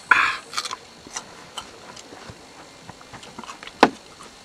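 Small clicks and knocks of glasses and objects handled on a camp table, with one sharp knock near the end as something is set down. Right at the start, a short breathy exhale just after a shot is downed.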